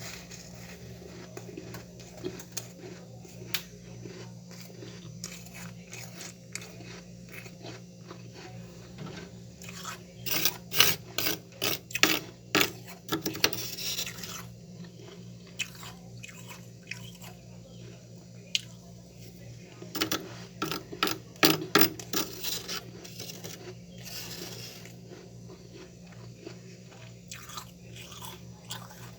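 Crunching and chewing of freezer frost, in two bouts of sharp crackly bites, one about ten seconds in and another about twenty seconds in, with scattered smaller crunches between. A steady low hum runs underneath.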